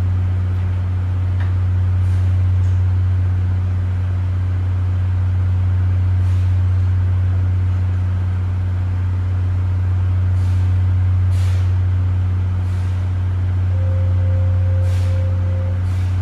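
Tobu 20400 series electric train standing at the platform, its onboard equipment giving a steady low hum. A few faint clicks and a brief steady tone come through near the end.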